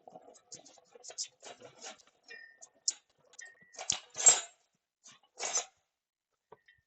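Workshop handling noises: a string of small clicks, knocks and scrapes from tools and parts being worked, with two louder short rushing bursts about four and five and a half seconds in.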